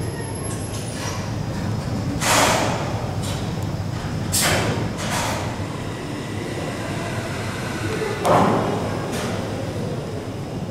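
Background murmur of people's voices, broken by three short hissing bursts about two, four and eight seconds in.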